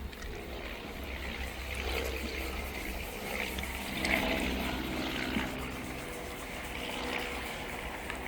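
A plastic headlight lens being polished by hand: soft rubbing swishes that swell every second or so, over a steady low rumble.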